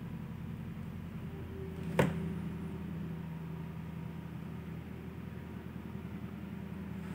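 A single sharp tap about two seconds in as a small acrylic name-badge plate is set down on the table to be pressed while its glue sets, over a steady low hum of room noise.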